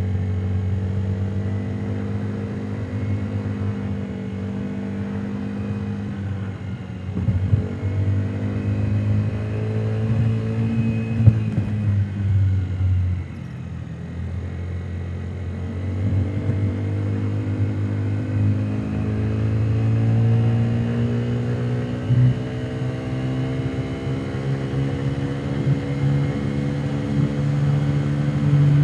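Honda Today 50cc scooter's single-cylinder four-stroke engine running on the road, heard muffled from inside the under-seat storage compartment. The engine note eases off and drops a little before halfway, with a few knocks along the way, then rises steadily toward the end as the scooter accelerates.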